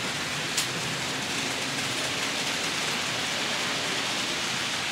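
Steady rushing hiss of model trains running on a model railway layout, with one sharp click about half a second in.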